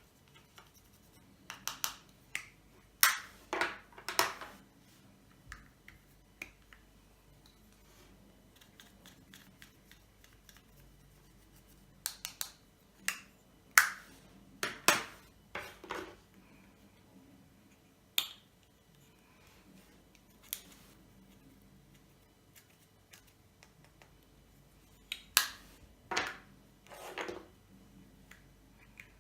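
White fluffy slime being pressed and stretched by hand, giving off sharp pops and clicks as air pockets burst. They come in short clusters with quiet stretches between.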